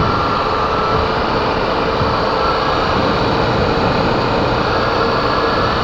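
Honda XR 250 Tornado's single-cylinder engine running steadily while riding at an even speed, under a constant rush of wind and road noise.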